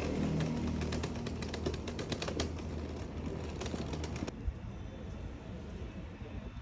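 Outdoor street sounds on a rainy day: a steady low hum of traffic under a dense haze of patter and many sharp clicks, which gives way about four seconds in to a softer, quieter mix.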